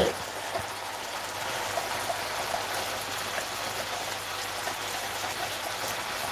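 Food frying in a pan: a steady sizzling hiss, with a few faint crunches from a courgette being cranked through a hand-turned Salter spiralizer.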